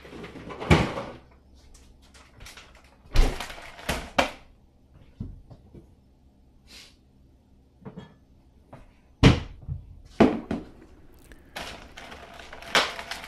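Kitchen refrigerator and cupboard doors closing and items handled on the counter: a series of about seven separate thunks and knocks, the loudest about three and nine seconds in.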